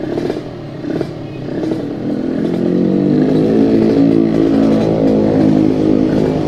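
Yamaha RX-King 135cc two-stroke single-cylinder engine running through an aftermarket local exhaust. There are a few short throttle blips, then about two seconds in it gets louder and holds a steady rev.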